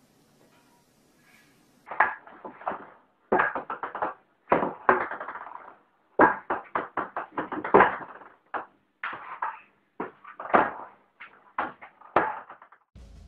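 Ping-pong ball bouncing on a table tennis table: quick runs of sharp clicks, starting about two seconds in.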